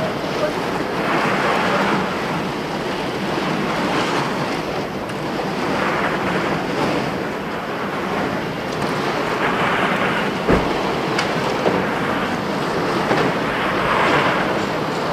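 Jacket fabric rubbing over a pocket camera's microphone as the wearer walks, a steady rushing that swells every two to three seconds. A single short thump about ten and a half seconds in.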